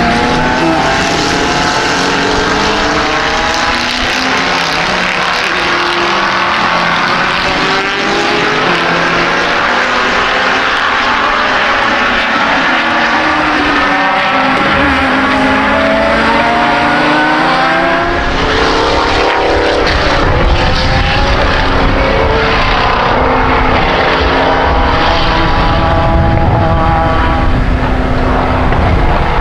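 Engines of a field of racing sports cars revving and changing gear as they lap, several engines overlapping with pitches rising and falling as cars pass. A deep rumble joins about two-thirds of the way through.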